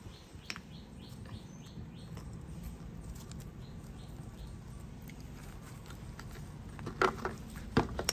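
Faint, short, high chirps repeating about twice a second, then two sharp clicks near the end.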